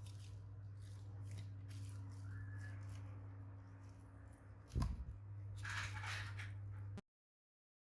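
Small handling sounds from a battery swap on an electronics bench, over a steady electrical hum: faint ticks, a single knock just under five seconds in, then a short scraping rustle. The sound cuts off abruptly about a second before the end.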